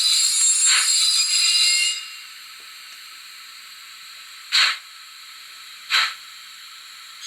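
Steam locomotive sound from the model's DCC sound decoder, played through its small onboard speaker so it sounds thin with no bass: a steady steam hiss for about two seconds, then single short steam puffs a few seconds apart.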